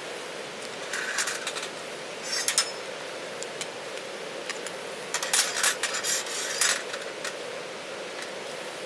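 Short bursts of clinking and scraping from handled hard objects, heard three times: about a second in, near two and a half seconds, and a longer run in the middle. Underneath is the steady rush of a river.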